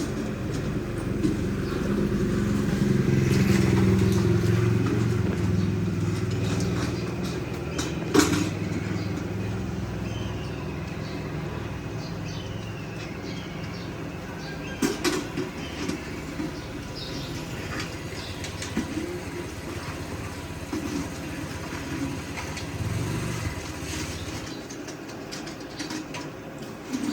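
Street traffic: a motor vehicle, likely a motorcycle, passes, loudest about four seconds in and then fading, over a steady background of street noise. A sharp knock comes about eight seconds in, and another near fifteen seconds.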